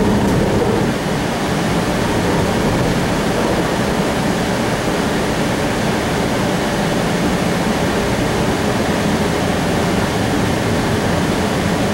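Steady rushing noise inside a moving CAF Urbos streetcar as it runs along its track between stops.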